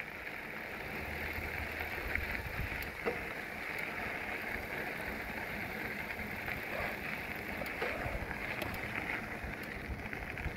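Steady rolling noise of a bicycle ridden along a gravel canal trail: tyre hiss with a few faint clicks.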